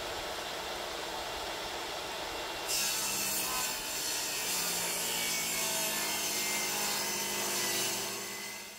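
Portable table saw running, then ripping an old wooden mantel board lengthwise from about three seconds in. The sound turns sharper and louder while the blade is in the wood, and the cut ends near the end.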